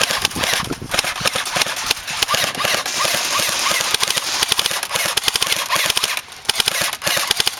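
Airsoft guns firing long full-auto bursts: a fast, unbroken rattle of sharp clicks, with brief pauses about a second in and twice near the end.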